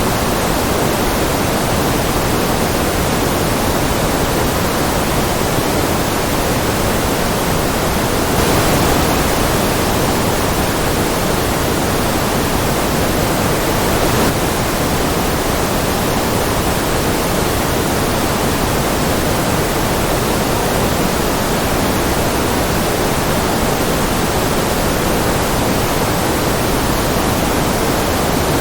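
Steady white-noise track: an even, unbroken rushing hiss, fullest in the lower middle of the range, with no changes.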